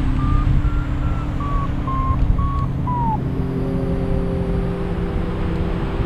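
Paragliding variometer beeping its climb tone: a quick run of short beeps that step up in pitch and then back down, ending in a falling slide about three seconds in, a sign of the glider rising in lift that then fades. Wind rushes over the microphone throughout.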